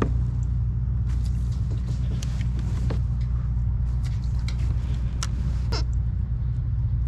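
A steady low hum or rumble, with scattered light clicks and ticks from the fishing rod and reel being handled.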